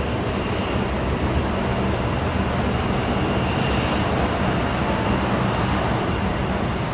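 Boeing 737-700's CFM56-7B jet engines running at taxi power as the airliner turns: a steady rumble with a faint high whine.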